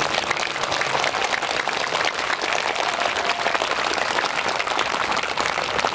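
Audience applauding at the end of an orchestral piece, many hands clapping at a steady level.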